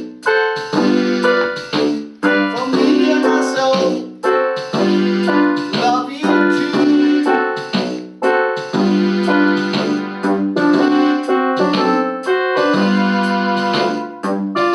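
Electronic keyboard playing a piano sound: rhythmic chords with a melody over them.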